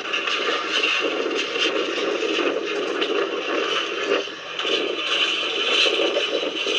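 Storm noise: a steady, loud rush of wind and rain, with frequent rattling and clattering on top.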